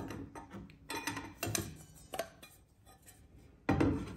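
Light metallic clicks and scrapes as a small metal spacer is worked in the arbor hole of a carbide-tipped metal-cutting saw blade and pulled back out, with a dull knock near the end.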